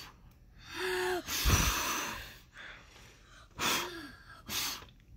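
A young child blowing hard at birthday candles in four separate puffs, with short voiced gasps as he draws breath between them. The strongest blow, about a second and a half in, hits the microphone with a low rumble.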